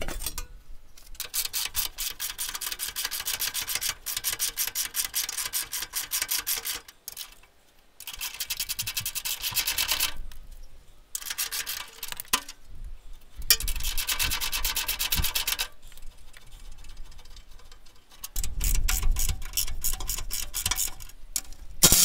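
Hand socket ratchet clicking in quick runs of a few seconds each as the bolts holding the stone guard and bash plate are spun out, with short pauses between runs. The last run, near the end, is louder and deeper.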